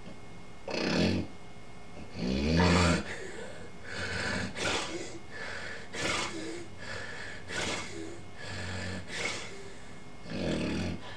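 Snoring in a series of uneven breaths: a long, low snore about two seconds in, a run of shorter ones after it, and another near the end.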